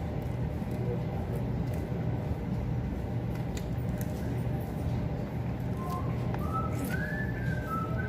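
Steady low hum of room noise with scattered faint clicks. From about six seconds in, a run of short rising whistle-like notes.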